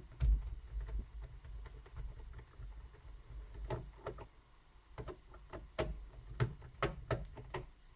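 Screwdriver and small screws clicking and tapping against a plastic laptop case, with a low thump near the start and scattered sharp clicks that come several a second in the second half, over low handling rumble.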